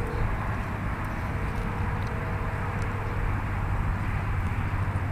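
Steady low outdoor rumble, with a faint steady hum that comes and goes.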